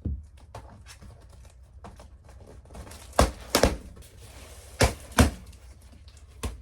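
Cardboard box being pried and torn open: faint rustling, then four sharp knocks and thuds in two pairs, a little past halfway and near the end.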